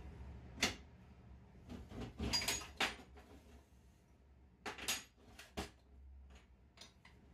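Steel clinking and knocking as a small piece of angle steel is handled in and out of the jaws of a homemade steel vise on a steel workbench: scattered sharp metal clicks, with a quick run of them about two to three seconds in and another around five seconds, over a faint low hum.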